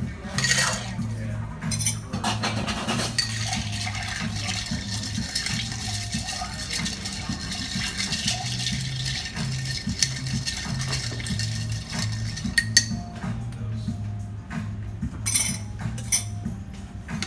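Ice being stirred with a metal bar spoon in a glass mixing glass: a dense, steady clinking rattle through the middle, then a few sharper clinks of glass and metal near the end. Background music with a repeating bass line plays throughout.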